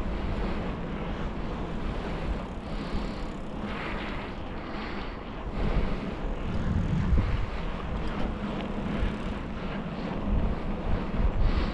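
Wind buffeting the microphone on a moving bicycle: a steady rushing noise with a heavy low rumble that swells and falls in gusts.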